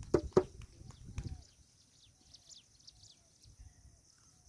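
Birds chirping faintly with short, high, falling calls scattered through a quiet stretch, after a few sharp knocks in the first half-second.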